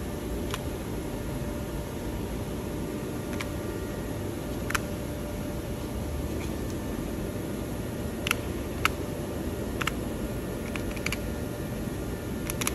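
Short, sharp clicks of buttons being pressed on a FANUC CNC control's keypad: single presses spread out, then a quick run of several near the end. A steady background hum runs under them.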